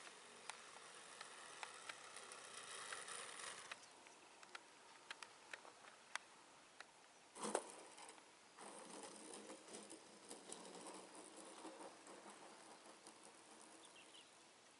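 Mostly near silence with faint hiss and scattered clicks, over which the O.S. GT15 two-stroke gasoline engine of a model airplane is faintly heard at low throttle as the plane lands and taxis. One sharp thump stands out about seven and a half seconds in.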